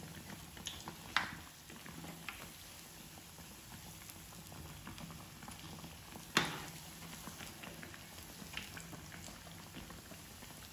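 Bread pakoras deep-frying in hot oil in a kadai: a steady sizzle with small scattered crackles. Two sharp knocks come through it, about a second in and about six seconds in, the second the loudest.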